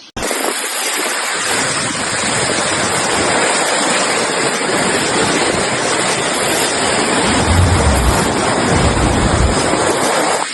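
Loud, steady rush of water, with a few low rumbles about three-quarters of the way through.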